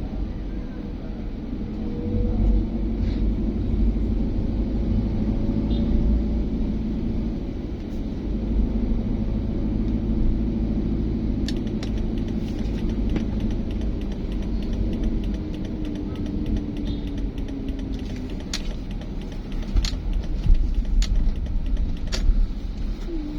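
Low, steady rumble of a road vehicle's engine, its tone drifting slowly up and down. From about halfway through come a run of light clicks and several sharp ticks.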